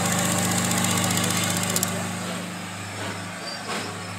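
LNER A4 Pacific steam locomotive 60007 Sir Nigel Gresley standing at the platform: loud steam hiss over a steady low hum with a fast pulsing beat. A little under two seconds in it cuts off abruptly, leaving a much quieter platform background.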